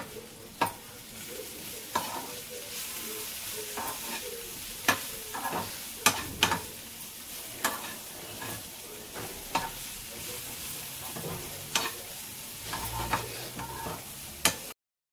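Food sizzling in a hot pan while a metal spoon stirs it, with irregular clicks and scrapes of the spoon against the pan. The sound cuts off abruptly just before the end.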